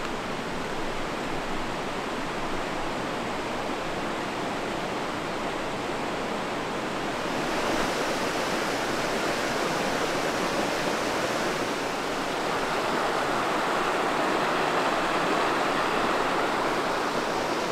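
Steady rushing of a forest creek's running water, a continuous noise without separate splashes that grows a little louder about eight seconds in and again near twelve seconds.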